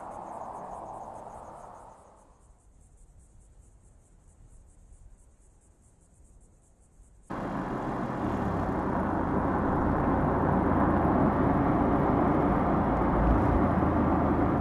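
2014 Audi RS7 Sportback's twin-turbo V8 fading away into the distance over the first two seconds, then a quiet stretch. About seven seconds in the sound cuts suddenly to loud, steady driving noise close to the car at speed: engine, tyre roar and wind with a deep rumble.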